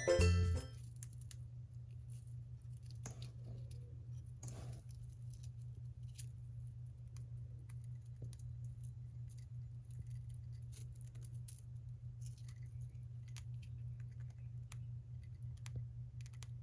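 Golden hamster eating a snack: faint, irregular little crunches and clicks of gnawing and chewing, over a steady low hum.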